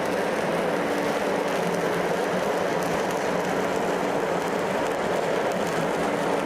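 Stick-welding arc burning a 7018 electrode: a continuous, even crackle and sizzle, with a faint steady hum underneath.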